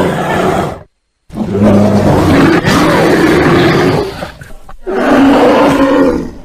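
A bear roaring in three loud bouts: a roar that cuts off about a second in, then after a short silence a long roar of about three seconds, and a third shorter roar that fades out near the end.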